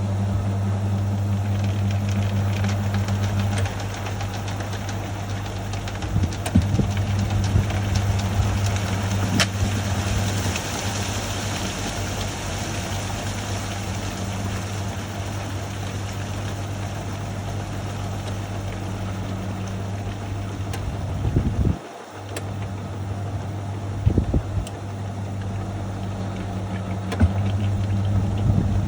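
National NA9450PN compact pulsator washing machine running, its motor giving a steady mains hum with a swish of water. The hum changes level about four seconds in and cuts out briefly about 22 seconds in, with a few clicks and knocks.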